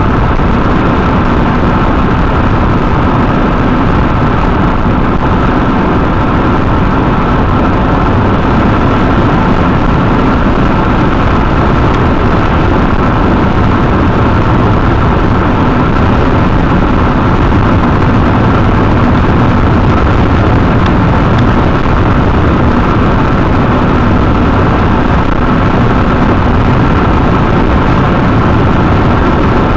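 Steady road noise inside a car cruising on a highway: tyre and engine noise with a faint steady hum.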